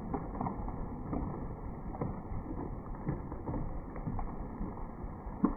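Stihl 044 two-stroke chainsaw cutting into a rotten, fire-burnt tree, heard from some distance as a steady rough noise with irregular knocks and a sharper knock near the end.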